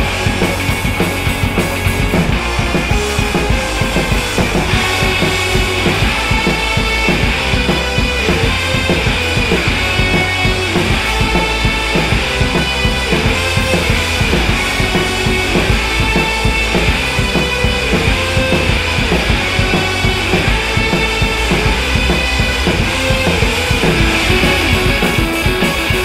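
Background rock music with a steady drum-kit beat and guitar.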